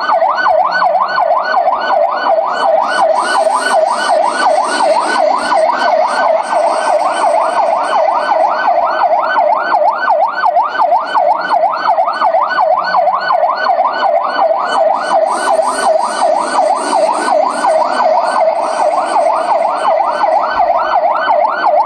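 Garda (Irish police) siren on a fast yelp: a rapid rising-and-falling wail, about four sweeps a second, held steady throughout.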